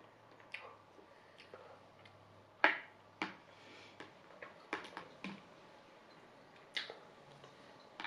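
Metal spoon clicking and scraping against a blue plastic bowl while food is scooped up: a scatter of short sharp clicks, the loudest a little over two and a half seconds in.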